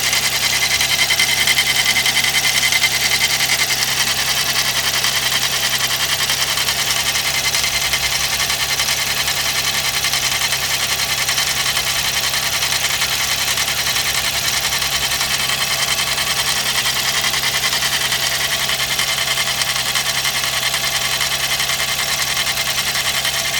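Suzuki K6A three-cylinder turbo engine running at a steady warm-up idle with a high-pitched mechanical noise over it. This abnormal noise appears only when the engine is warming up cold, and the owner suspects the camshaft.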